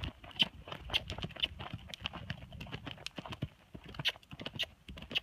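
Horse's hooves striking dry, stony dirt at a trot: an uneven run of thuds.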